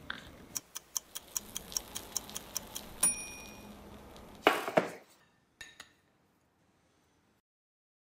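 An oven's mechanical timer clicking evenly, about five clicks a second, then ringing once with a bright ding as the bake finishes. About a second and a half later a metal baking tray clatters, followed by two light knocks.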